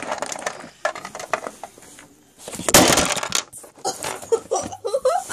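Small plastic toy pieces clicking and clattering as they are handled, then, about three seconds in, a loud rustling scrape as the camera is picked up and moved, rubbing against the microphone.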